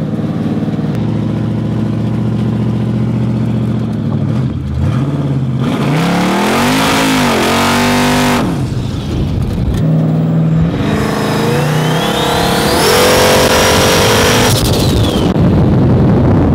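Twin-turbo 400 cubic inch Windsor-style V8 in a Ford Mustang accelerating hard on low boost, about 5 psi, with the revs climbing and dropping back several times. From about ten seconds in, a high turbo whistle rises, holds, and falls away near the end.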